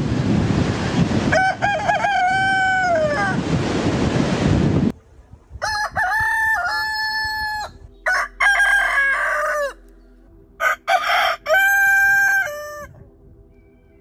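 Roosters crowing four times: one crow over a heavy wind-like noise, then, after a cut, three long crows one after another on a quiet background, each held level and then falling away at the end.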